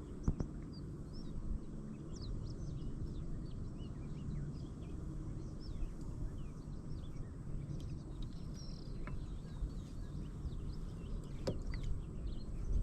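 Many small birds chirping and calling, short rapid notes overlapping one another, over a steady low rumble.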